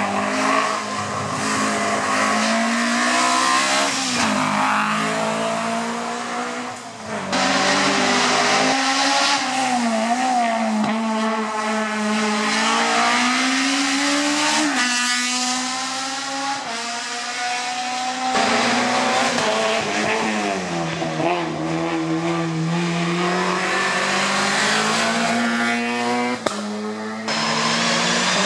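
Hill-climb race car engines at full throttle, pitch climbing and dropping again and again through gear changes as cars pass. The sound breaks off sharply several times and carries on as another car.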